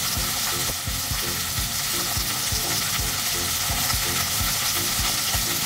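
Half-thawed chicken breast sizzling skin-side down in hot sesame oil in a cast-iron Staub pot: a steady frying hiss.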